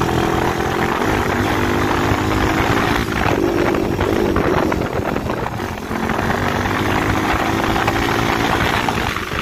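Dirt bike engine running while riding, its pitch rising and falling with the throttle, easing off briefly a little past halfway before picking up again.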